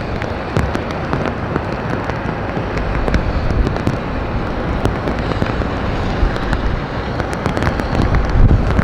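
Rain crackling on the microphone, a thick scatter of sharp drop clicks over a steady low rumble.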